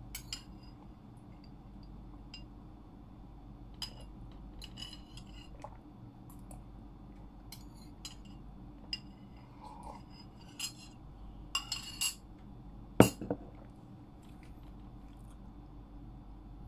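Metal spoon clinking and scraping against a ceramic bowl while eating, in scattered light taps, with one louder knock about thirteen seconds in.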